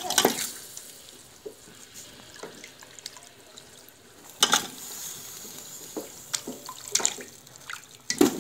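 Raw trotter pieces being dropped and pressed by hand into a pressure cooker of wet onion masala: wet squelches and several sharp knocks against the pot, the loudest near the start and about four and a half seconds in.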